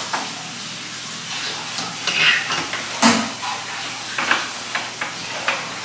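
Ragi mudde being stirred and worked in a cooking pot: short knocks and scrapes against the pot over a steady hiss. The loudest knock comes about three seconds in.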